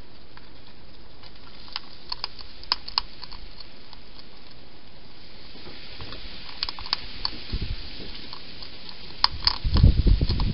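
Hedgehog eating from a food bowl: scattered crisp clicks of chewing and crunching over a steady hiss. In the last second or so come a run of louder low bumps and rustles.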